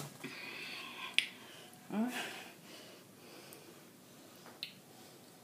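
A sharp click about a second in, a short rising vocal sound like a grunt a second later, and a fainter click near the end, over quiet room noise.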